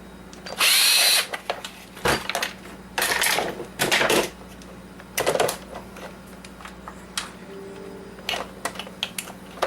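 Coffee maker being taken apart by hand: a loud half-second whirring burst about half a second in, then several shorter bursts of scraping and rattling, with clicks of the plastic housing and parts between them.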